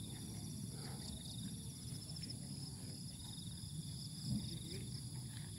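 Faint chorus of insects, crickets or similar, trilling steadily at several high pitches over a low rumble.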